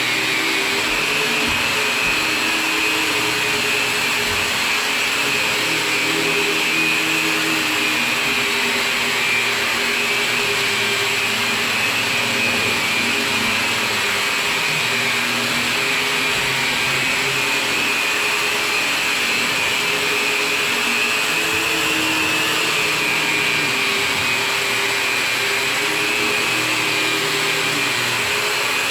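Electric drywall sander running steadily against a drywall ceiling, a constant high whine over a low hum that wavers as the pad moves across the surface.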